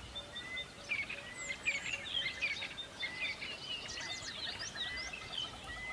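Several birds chirping and calling over one another: quick high chirps and sweeping notes, with one short whistled note recurring every second or so.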